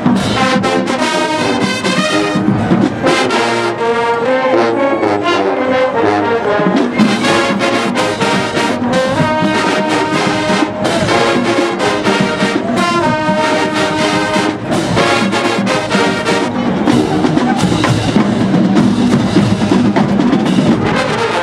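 HBCU show-style marching band playing loud, brass-heavy music, with trumpets, trombones and sousaphones over drums and mallet percussion.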